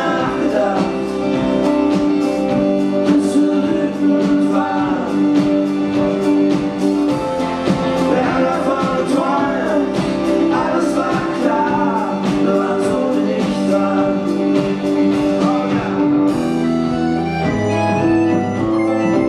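Live pop-rock band playing: sung vocals over electric guitar, drums and keyboards. About 16 seconds in the drums drop out, leaving held keyboard chords.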